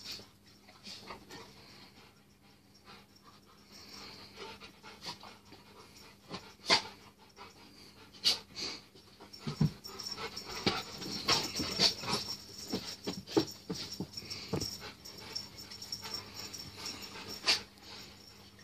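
Rottweilers panting hard while playing with a cat wand toy, with many sharp clicks and knocks among the breathing that grow busier and louder about halfway through.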